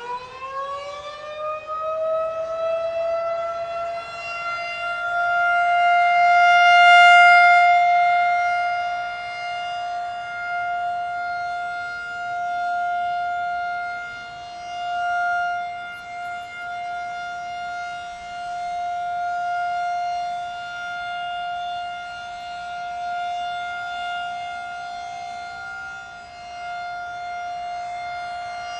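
Federal Signal 2001-SRN rotating outdoor warning siren winding up over the first couple of seconds into its steady Alert tone for a monthly test. The tone then holds one pitch, swelling and fading in loudness as the horn turns.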